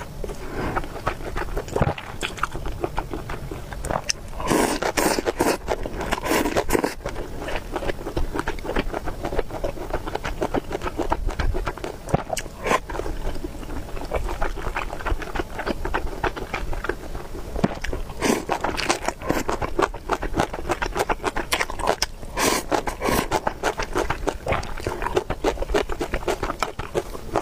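Close-miked eating sounds: a person chewing and biting food, with a dense run of small wet clicks and a few louder bursts about 5, 18 and 23 seconds in.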